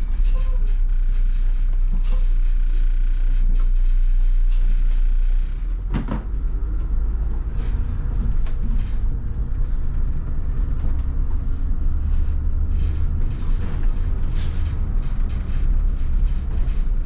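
2002 MCI D4500 coach's diesel engine and drivetrain running under way, a steady low rumble with light rattles and a sharp knock about six seconds in.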